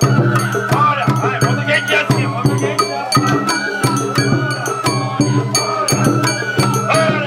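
Gion festival float music (hayashi): taiko drums and a small metal hand gong struck in a quick, steady beat, with a sustained high melody line over it.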